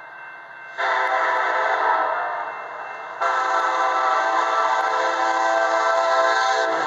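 Diesel locomotive air horn on a BNSF SD70ACe sounding two long blasts, the second starting about three seconds in, as the train approaches a grade crossing. Just before the end the horn stops and the rumble of the passing train takes over.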